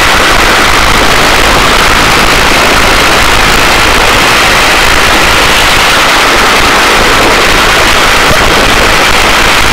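Helicopter rotor and turbine noise heard loud and steady inside the cabin with the side door open during a hoist operation, with a rush of air across the open doorway.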